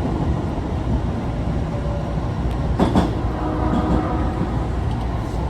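Running noise inside Osaka Metro subway car 22962, a car labelled an abnormal-noise car: a steady low rumble with a sharp knock about three seconds in, followed by faint whining tones.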